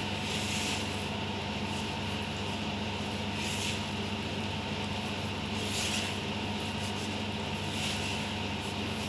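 A steady mechanical hum, with a spatula scraping and rubbing through thick muffin batter in a plastic bowl: brief soft scrapes every two to three seconds.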